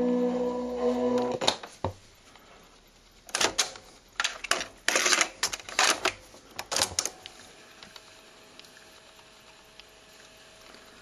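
Ferguson 3T13 radio-cassette recorder: music from it cuts off with a switch click about a second and a half in. This is followed by a run of sharp plastic clicks and clunks as its cassette door and controls are worked. After that only a faint steady hum and hiss remain.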